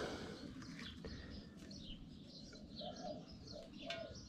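Small birds chirping faintly and repeatedly in the background, with a brief rattle of clicks near the end.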